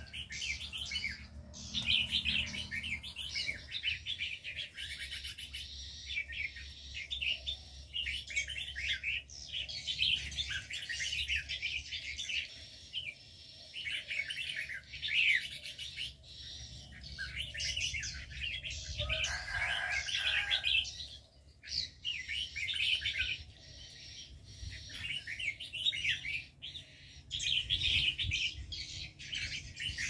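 Many small aviary birds chirping and twittering together in a dense, continuous chorus of high chirps, with a brief lull about two-thirds of the way through.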